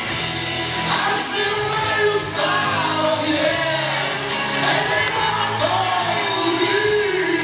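A woman singing a pop song into a handheld microphone over a backing track, heard through a hall's sound system.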